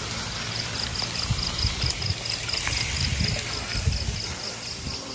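An insect chirping steadily at about four or five pulses a second, with irregular low thumps underneath.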